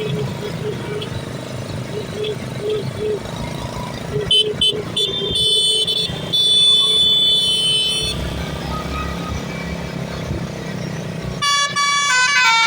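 Indonesian 'telolet basuri' bus horn: a few short toots about four seconds in, then long held blasts, then a stepping multi-note horn melody near the end, over a bus engine's rumble.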